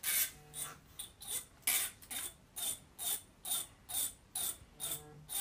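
A comb's teeth being scratched over and over, a short rasp a little over twice a second.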